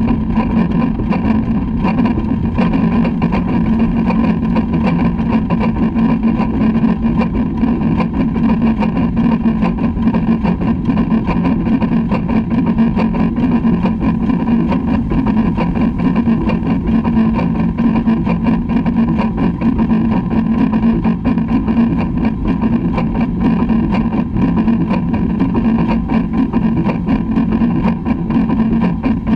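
LMS Black 5 steam locomotive running along the line, heard from its front buffer beam: a steady, loud rumble and rattle of wheels on rail.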